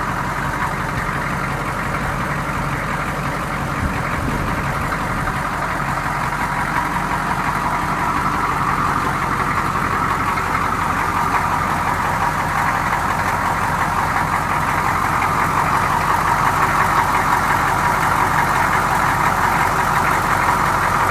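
1984 Chevrolet M1008's 6.2 L Detroit diesel V8 idling steadily, getting a little louder near the end.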